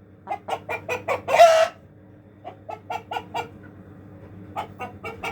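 A chicken cackling: a run of quick clucks building into one drawn-out call about a second and a half in, then two more runs of clucks.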